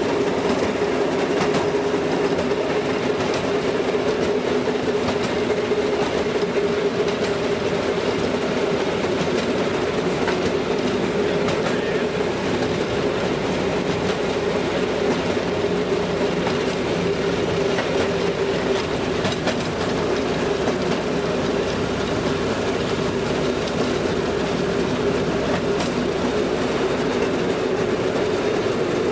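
Railroad motorcar (speeder) running along the track, heard from inside its cab: a steady engine and running-gear drone with occasional clicks.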